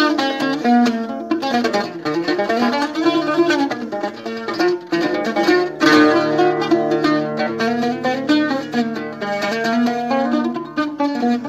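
Solo teardrop-bodied long-necked lute picked with a plectrum, playing a fast running melody of quick single notes over ringing open-string drones. This is the instrumental break of an Algerian chaabi song, with no singing.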